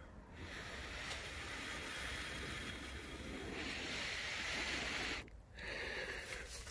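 A steady rushing hiss, dropping out briefly about five seconds in.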